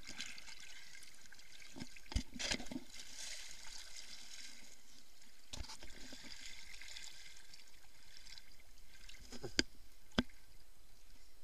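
Sea water sloshing and lapping around a camera held half in the water, with a steady hiss, and a few sharp knocks and splashes: one about two seconds in and two close together near the end.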